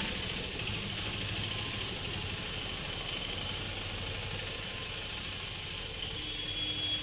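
An engine running steadily at idle: a continuous low rumble, with a faint thin high tone coming in near the end.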